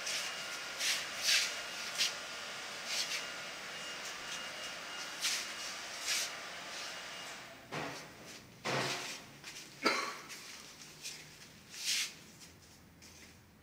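Steady indoor background hiss with a faint high whine, broken by scattered short knocks and clicks; the hiss and whine drop away about halfway through.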